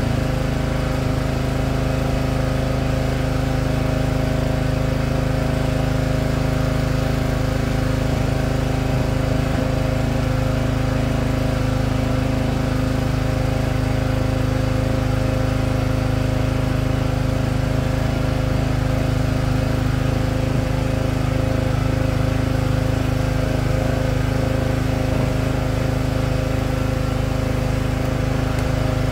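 Small gasoline engine of a Split-fire 2265 log splitter running steadily at a constant speed.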